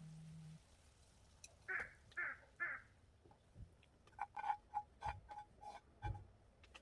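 Bird calling: three harsh calls in quick succession, then a run of short, rapid notes.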